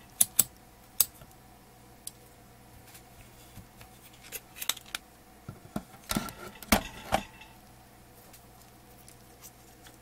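Clicks and light clatter from a handheld Fluke digital multimeter and its test leads being handled: a few sharp clicks in the first second, then a burst of knocks and rattles about six seconds in as the meter is set down on the metal chassis, over a faint steady hum.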